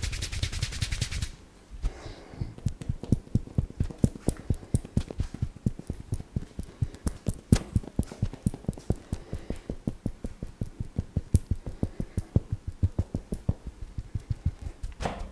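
Hands beating a percussive massage on a customer: a fast flurry of crisp strokes stops about a second in, then steady dull slaps and pats, several a second, with a few sharper smacks among them.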